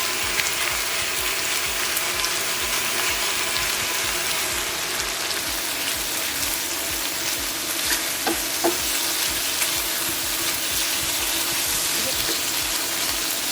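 Bite-sized chicken pieces frying in oil in a large skillet over medium-high heat, with a steady sizzle. A couple of light clicks come about eight seconds in.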